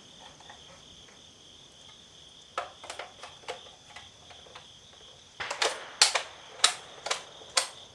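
Sharp clicks of 12-gauge shotgun shells and a bullpup shotgun's box magazine being handled and loaded: a few light clicks about three seconds in, then a quicker run of louder clicks from about five and a half seconds in. Crickets chirp steadily throughout.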